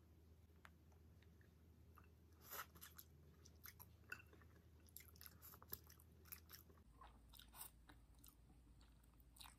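Faint chewing of Indomie instant noodles: soft, wet mouth clicks and smacks coming irregularly, a few at a time.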